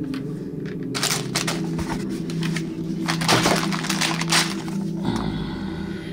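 Clear plastic bags of toy building bricks crinkling and rustling as hands pick them up and handle them. The crinkling starts about a second in and is loudest around the middle, over steady background music.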